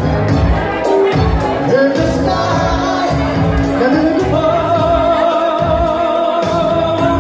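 A man sings into a microphone over a backing track with a steady beat. Past the middle he holds one long note.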